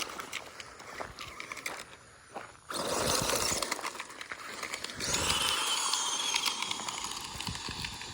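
1/16-scale Traxxas Slash RC truck launching, its tyres spinning and scrabbling in loose dirt and gravel, with a faint high electric-motor whine. It comes in two sudden surges, about two and a half and five seconds in.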